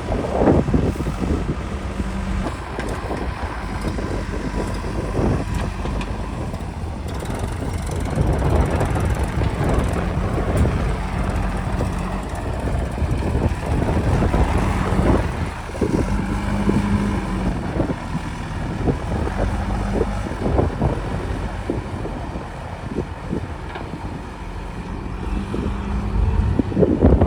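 Heavy diesel engine of a backhoe loader or tractor running under load, its note shifting up and down, with scattered knocks and wind buffeting the microphone.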